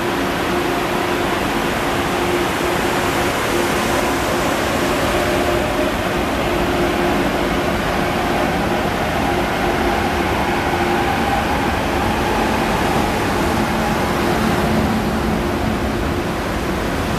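A Renfe electric multiple-unit train rolling slowly past along the platform, a steady rushing hum from its equipment with a faint tone that rises slowly as it gathers speed.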